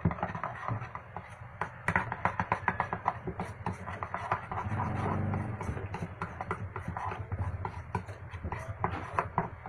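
Rapid clicking and scraping of a utensil against a mixing bowl as puto batter is stirred.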